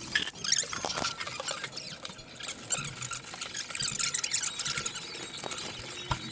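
A fast-food paper takeaway bag rustling and crinkling close to the microphone as it is handled and food is unpacked, a dense run of small crackles.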